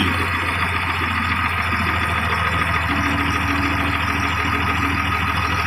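Tractor engine running steadily under a gentle load in its lowest reverse gear, pulling a stuck bale out of a big baler's chamber by chain.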